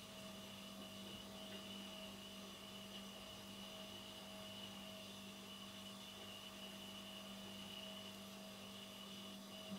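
Faint, steady electrical hum over a soft hiss: room tone.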